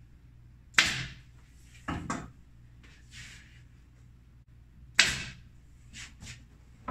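Pneumatic upholstery stapler firing staples through the felt into the table edge: sharp shots about a second in and at five seconds, with a double hit around two seconds.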